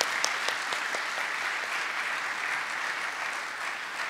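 Audience applause, a steady clatter of many hands clapping, with loud single claps close to the microphone, about four a second, that die away in the first second.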